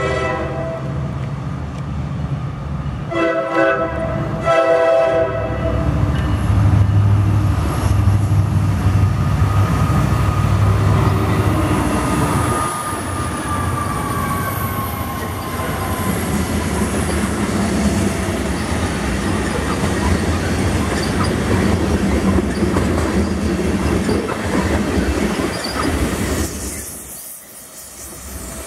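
Norfolk Southern freight train: the lead locomotive's horn sounds in three blasts over the first five seconds or so. Then the diesel locomotives pass with a heavy low engine rumble, followed by tank cars rolling by with wheel clatter and a high squeal of wheels on rail that slowly falls in pitch.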